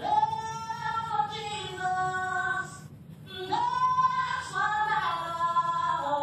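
A woman singing solo into a microphone: long held high notes that bend in pitch, in two phrases with a short breath about three seconds in. It is heard as played back through a television and picked up by a phone.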